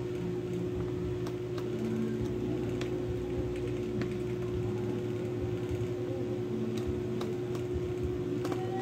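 Steady hum of a small motor, with a few faint, light clicks from a screwdriver working the screws near a laptop's hinge.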